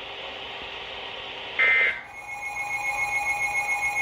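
Radio hiss, then about a second and a half in a short loud burst of EAS digital data tones. Half a second later a steady electronic alert tone starts and holds.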